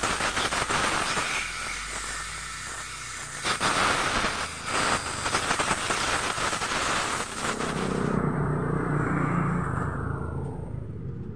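Compressed air hissing from a blow nozzle on an air hose, blowing out a scooter's front brake master cylinder in uneven blasts; it cuts off about eight seconds in.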